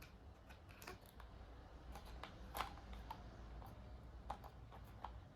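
Faint, irregular light clicks and taps from hands working on a laptop, a few each second.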